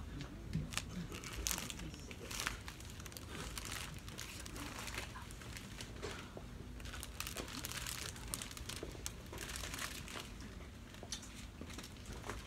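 Crinkling of the clear plastic sleeves around rose stems as the flowers are handled and passed, heard as irregular crackles and rustles over a low steady hum.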